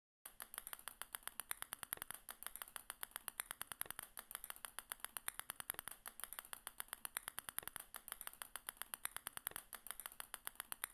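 A rapid, steady run of small clicks, many a second, as a stream of small balls drops one after another onto a growing pile. It starts just after the beginning.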